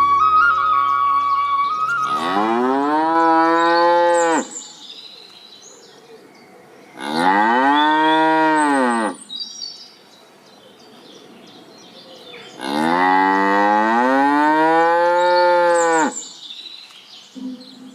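Cow mooing three times, each a long call of two to three seconds that rises and falls in pitch, with pauses between.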